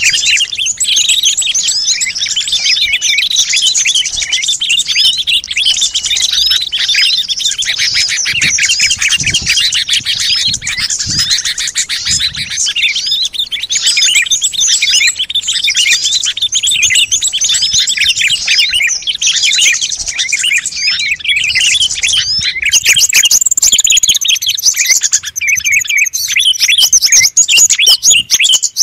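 Dense chorus of many small songbirds chirping and calling over one another, a bird-lure recording of mixed species. Higher, busier calls join in a few seconds before the end.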